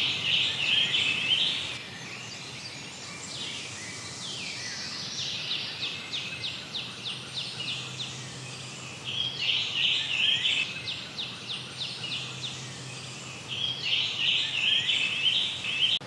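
Male scarlet tanager singing from the treetops. About four bouts of short, hoarse, burry phrases, like a robin with a sore throat, come with brief pauses between them.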